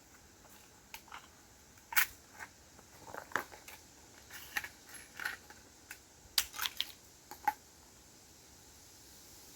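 Scattered light clicks and clinks of small metal parts or hand tools being handled, a dozen or so irregular taps, the sharpest about two seconds in and a quick cluster a little past the middle.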